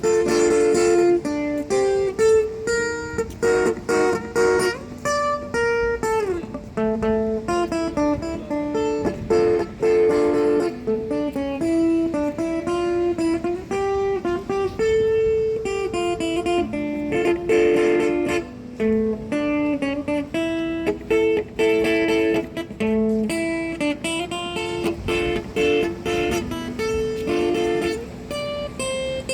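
A busker's guitar playing a melody of picked notes, continuously.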